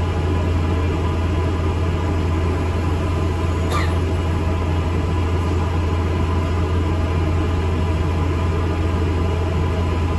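Alexander Dennis Enviro400 MMC double-decker bus running, heard inside: a steady low engine and road rumble, with one short sharp click about four seconds in.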